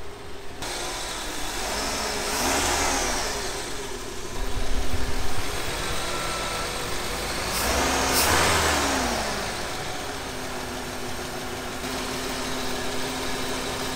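Ford 4.9-litre (300 cubic inch) inline-six running, just back together after a blown head gasket was replaced. It rises in revs twice and settles back to a steady run.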